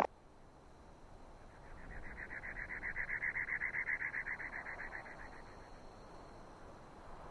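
An animal's call: one rapid pulsed trill, many beats a second, swelling in about a second and a half in and fading out after about four seconds.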